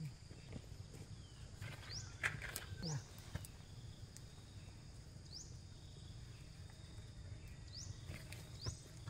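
Quiet rural ambience with about five short, high, rising chirps from a small animal, and a cluster of clicks and knocks about two to three seconds in.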